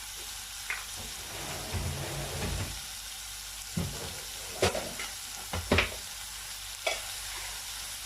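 Beef and onion frying in olive oil in a pot, a steady sizzle. A utensil stirring the meat knocks against the pot several times in the second half.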